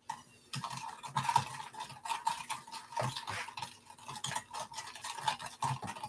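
A spoon stirring sugar into water in a clear cup: quick, continuous scraping and clinking against the cup, starting about half a second in. The sugar has not yet dissolved.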